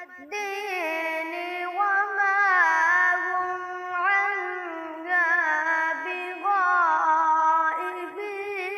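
A boy reciting the Quran in melodic tilawat style: one high voice drawing out long phrases with wavering, ornamented runs, with brief breaks between phrases.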